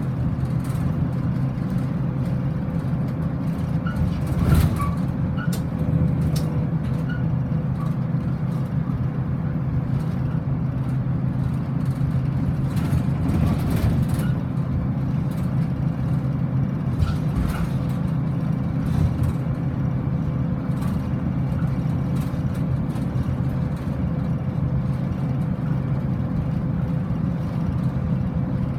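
Motor vehicle running steadily on the road: a continuous low engine and road hum with a faint steady tone above it and a few light clicks.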